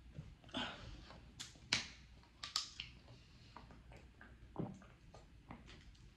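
Faint scattered clicks and crinkles of a plastic water bottle being picked up, uncapped and drunk from, the sharpest click just under two seconds in.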